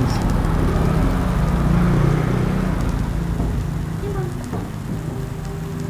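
Freshly served steak sizzling on its hot plate, a steady crackling hiss that slowly dies down.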